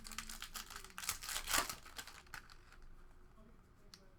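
Plastic crinkling and crackling as trading cards and their packaging are handled: a quick run of crackles lasting about two seconds, loudest about a second and a half in, then a few faint clicks.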